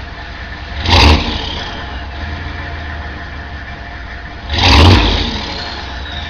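6.5-litre turbo diesel V8 of a 1999 Chevrolet C2500 idling, blipped twice, about a second in and again near five seconds. After each rev a turbo whistle falls away in pitch.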